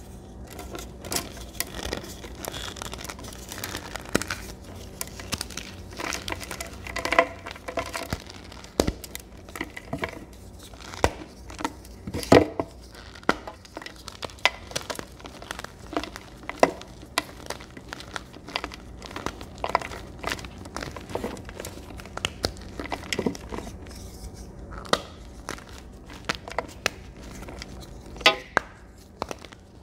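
Blocks of dyed gym chalk crushed and crumbled by hand: a continuous dry, crunchy crumbling with many irregular sharp cracks as pieces break apart, the loudest crack about twelve seconds in.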